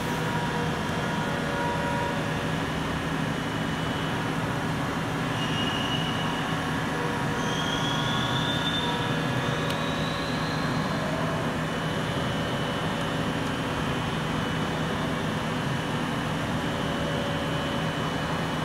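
Steady mechanical hum and rumble of background machinery, with a few faint high rising squeaks around the middle.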